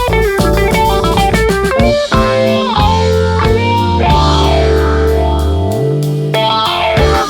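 Funk background music with electric guitar, bass and drums. A busy groove gives way about two seconds in to long held bass and chord notes, with a bass slide near the end before the beat picks up again.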